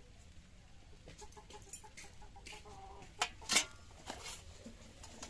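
Chickens clucking in short pitched calls. A couple of sharp clinks of steel dishes being handled come about three and a half seconds in and are the loudest sounds.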